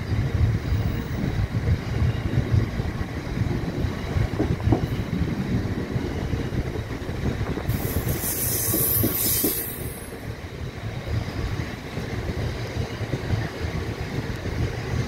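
Bogie box wagons of a stone train rolling past: a steady low rumble of wheels on rail with scattered knocks over the joints, and a brief high hiss about halfway through.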